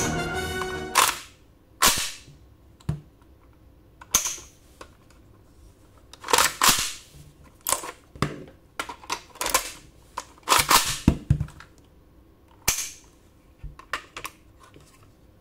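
Sharp plastic clacks and snaps from a 3D-printed Type 81 rifle model being worked by hand as its magazine is taken out and refitted and its parts are worked. There are a dozen or so irregular clicks, some in quick pairs, with quiet between them.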